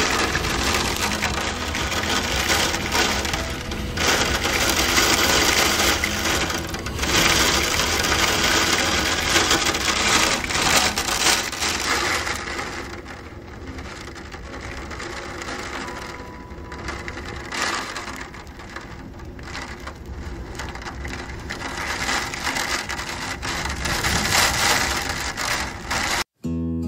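Heavy hurricane rain and gusting wind, a dense noise that swells and eases in waves. It cuts off abruptly near the end.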